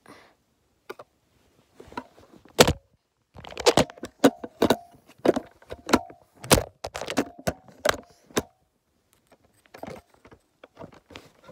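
Handling noise: a run of sharp knocks and clicks, some with a faint rattle, as the recording device is gripped and moved about.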